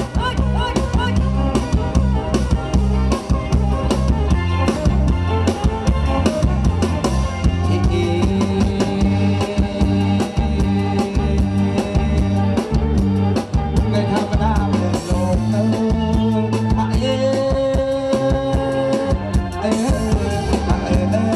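Live Khmer Surin kantrum band playing loud amplified dance music, with a steady drum-kit beat and bass under a melody line. No words are sung in this passage.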